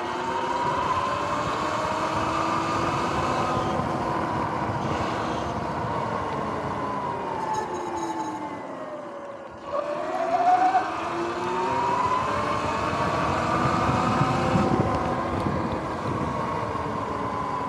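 Electric dirt bike's motor whine, several pitches gliding down together as the bike slows almost to a stop about halfway through, then rising again as it accelerates away. Tyre hiss on the wet road runs underneath.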